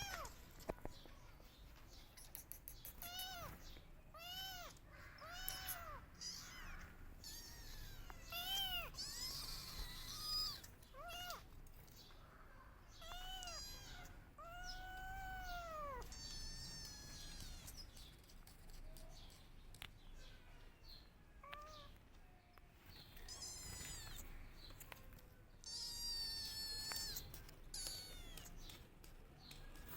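Kittens meowing over and over in short, arching cries, with one longer drawn-out cry near the middle and higher, thinner wavering cries near the end: the distress calls of kittens searching for their mother.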